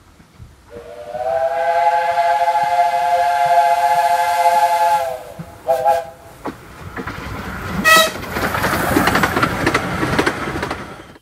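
A 15-inch gauge steam locomotive's chime whistle sounds one long blast of several notes together, held for about four seconds, then a short toot. The train then runs past close by, its wheels rumbling and clattering over the rails, with another brief toot partway through.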